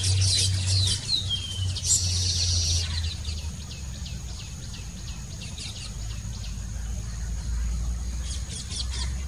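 Baya weavers chattering: a fast run of short, high, down-sweeping notes, with a thin high whistle held from about two seconds in and another burst of chatter near the end.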